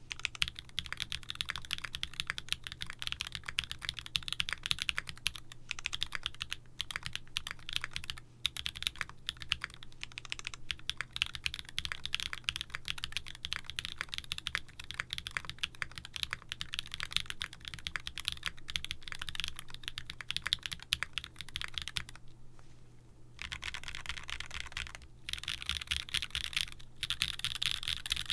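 Fast, continuous typing on a mechanical keyboard built with Gateron switch bottom housings, Cherry top housings and an aluminium plate, giving rapid clacking keystrokes. The typing stops briefly about 22 seconds in, then resumes.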